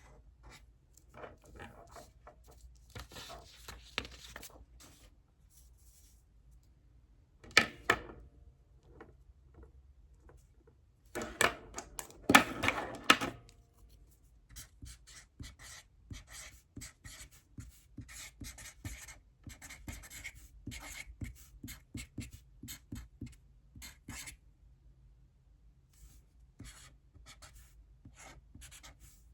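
Writing by hand on paper: short scratching strokes coming in runs with pauses, with two louder scraping bursts about eight and twelve seconds in.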